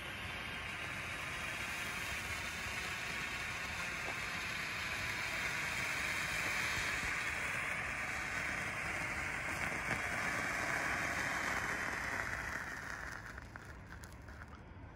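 Handheld red Bengal flare (DB Fireworks Flamethrower) burning with a steady hiss. The hiss dies away about thirteen seconds in as the flare burns out.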